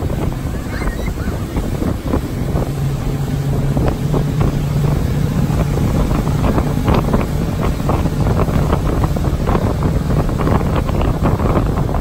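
Motorboat engine running steadily at speed, a low hum under the rush of the churning wake, with wind buffeting the microphone.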